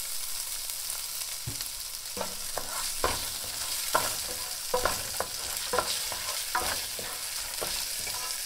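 Raw rice frying in hot oil in a nonstick pan, sizzling steadily, as a wooden spoon stirs it and scrapes the pan bottom about once or twice a second from about two seconds in. The rice is being toasted golden before the blended tomato is added, as for Mexican rice.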